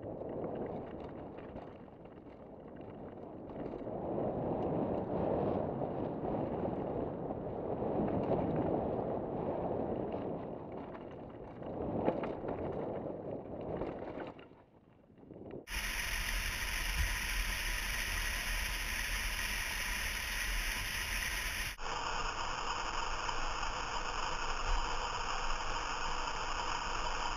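Helmet-mounted action camera audio of a mountain bike ride: wind rushing over the microphone with tyre and trail rattle. The sound cuts abruptly to a different camera's recording about 16 seconds in, and again about 22 seconds in, each with a steadier, differently coloured noise.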